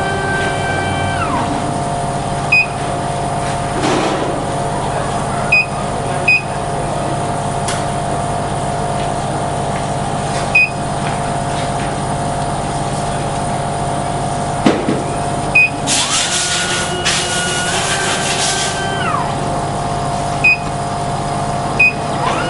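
Laser engraving machine running with a steady hum. Its drive motors whine up in pitch and back down as the laser head travels: once at the start, again between about 16 and 19 seconds with a hiss, and again at the very end. Short high beeps come about seven times, with a sharp click just before the middle move.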